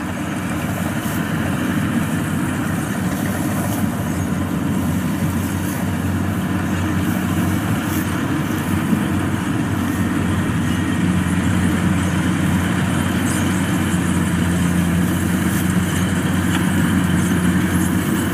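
Kubota DC-105X combine harvester's diesel engine running steadily while it cuts and threshes rice, a constant mechanical hum that grows gradually louder as the machine comes closer.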